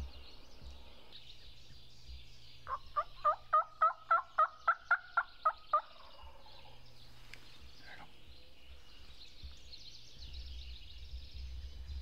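Turkey yelping: a run of about a dozen evenly spaced yelps, about four a second, lasting about three seconds and clearly louder than the background.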